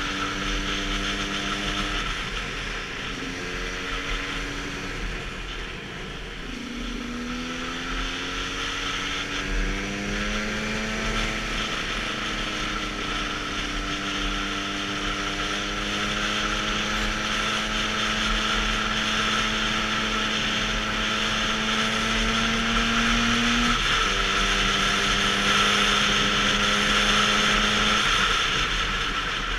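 KTM 125 two-stroke enduro motorcycle running under way. The engine note holds, rises and drops in steps several times, with a steady rush of wind on the helmet-mounted microphone.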